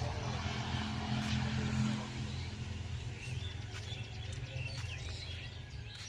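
Small birds chirping in short, scattered calls, more of them in the second half, over a steady low rumble that is loudest in the first two seconds.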